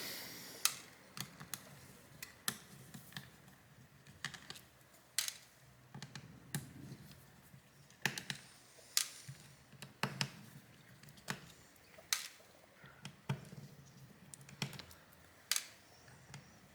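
Small, sharp clicks and taps, spaced irregularly about once a second, from a precision screwdriver working the phone's small Phillips screws.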